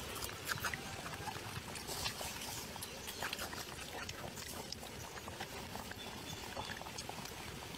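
Rhesus macaques making short, faint animal sounds over a steady outdoor hiss.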